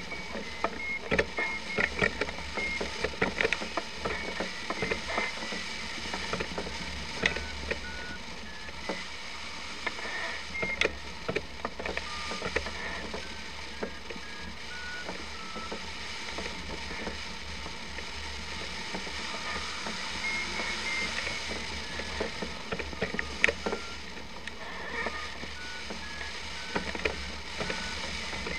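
Flight variometer beeping in short tones whose pitch steps with the rate of climb: higher near the start and again about twenty seconds in, lower in between. Under it a steady low rumble, with scattered clicks and rattles, busiest in the first few seconds.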